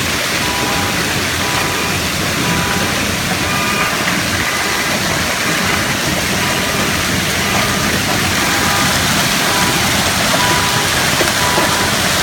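Heavy hailstorm with torrential rain: a loud, steady, dense roar of hail and rain coming down, with no single strikes standing out.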